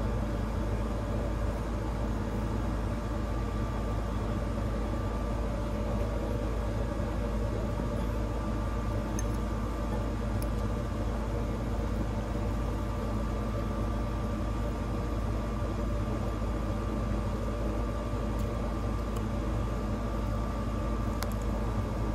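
A steady low mechanical hum with a faint, even whine above it, unchanging throughout.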